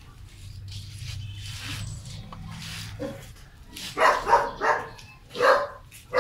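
A dog barking: about five short, loud barks in the second half, over a low, steady hum.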